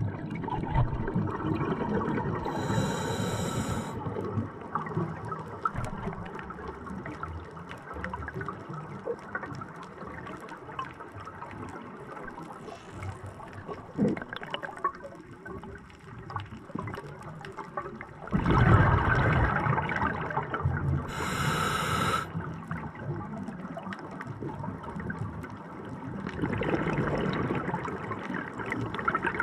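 Scuba diver breathing through a regulator underwater: a short hissing inhale from the regulator three times, with long bubbling exhales in between.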